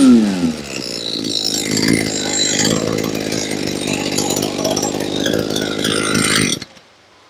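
A 25cc two-stroke brush cutter engine drops from high revs as the throttle is released, then idles unevenly. It cuts off suddenly near the end.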